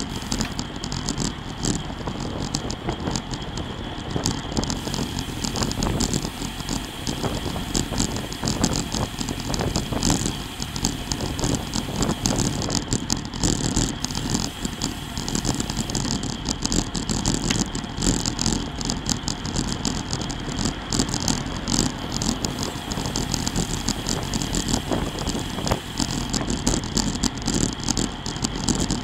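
Road bicycle at about 28 mph in a group ride: wind rushing over the bike-mounted camera's microphone and tyre noise on asphalt. Frequent sharp rattles and clicks come from the bike and its mount.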